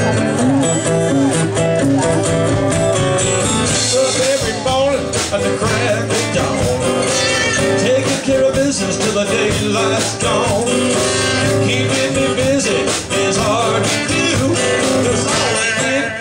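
Live country-rock band playing the instrumental opening of a song: acoustic guitars strumming over electric bass with a steady beat.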